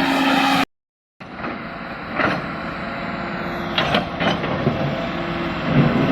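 Komatsu excavator's diesel engine running steadily, with a few sharp creaks and clanks about two and four seconds in. The sound cuts out completely for half a second near the start.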